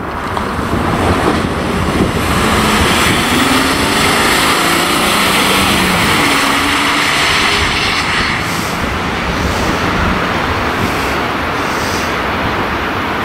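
Ambulance van driving past at speed, its engine and tyre noise swelling about two seconds in and easing off after about eight seconds.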